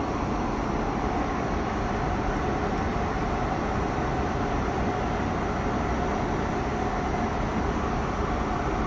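Steady in-flight cabin noise of an Airbus A340-600 airliner: an even rush of airflow and engine noise.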